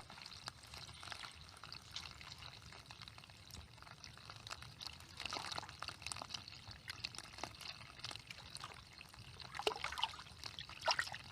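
Faint splashing and trickling water, small irregular splashes that grow a little busier about five seconds in and again near the end.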